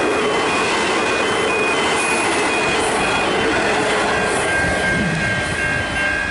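V/Line train running past close by, a steady loud rush of wheel and rail noise with short high ringing tones coming and going. A steady high squeal joins about four and a half seconds in.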